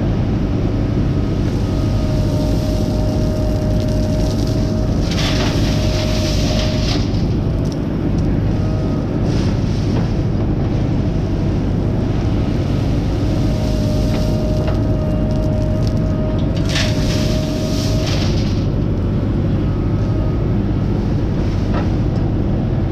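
JCB 3DX backhoe loader's diesel engine running under load while the backhoe digs gravel. A steady whine from the hydraulics comes in twice for several seconds, and near the end of each comes a brief burst of rattling gravel as the bucket works the pile.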